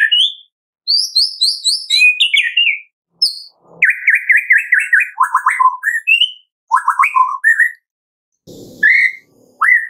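White-rumped shama singing: short phrases of quick repeated whistled notes and clear slurred whistles, with brief pauses between phrases. There is a short rough, noisy sound near the end.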